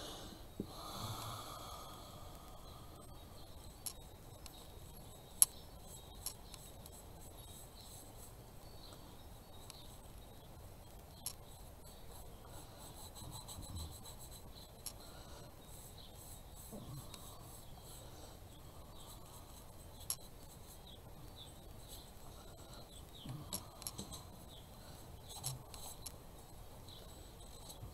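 Faint rubbing and rustling of hands working a small wooden house frame with a paper towel and paint brush, with scattered sharp clicks and taps, the loudest about five seconds in.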